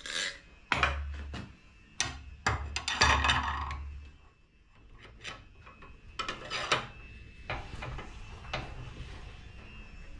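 Knocks, clinks and scraping of steel parts being handled: a long lead screw is fed into a shaper's saddle and bronze nut, and a metal oil can is handled beside it. The louder knocks and scrapes come in the first four seconds, followed by lighter taps and clinks.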